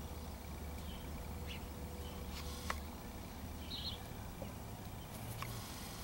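A few short, sharp taps of a crow's beak pecking at a bird-bath dish, the loudest about halfway through, over a low steady outdoor hum.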